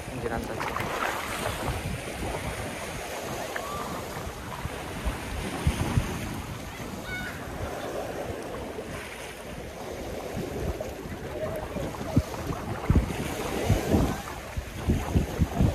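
Small waves lapping and washing against a rocky shoreline, with wind buffeting the microphone; the wind thumps come more often near the end.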